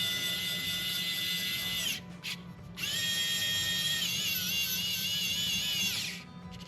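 Small electric screwdriver driving screws into the printer's plastic carriage in two runs, each a steady motor whine. The second run wavers in pitch as the screw takes up load.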